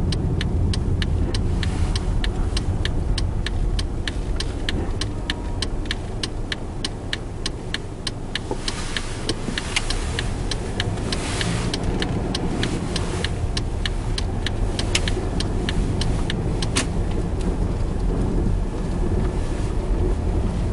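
Car driving on a snow-covered gravel road, heard from inside the cabin: a steady low rumble of engine and road noise. Through most of the stretch a fast, even ticking runs along with it and stops near the end.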